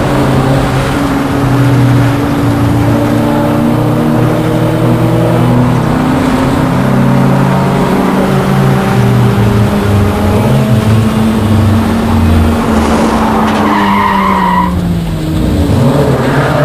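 VW Rabbit race car's engine heard from inside the cabin, pulling hard at high revs, its pitch rising and then sinking as the car slows for a corner. The tyres squeal briefly about fourteen seconds in.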